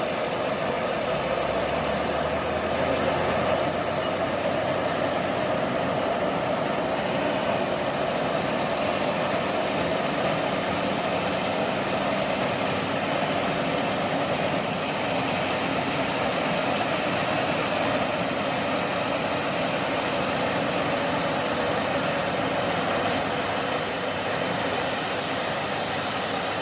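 Engine of a rice-harvesting tractor machine running steadily, with an even mechanical din that holds at one level throughout.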